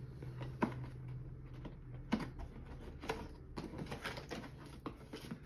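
Scattered light knocks and clicks, about five or six over a few seconds, as an LED PAR light is lifted out of its cardboard carton and handled.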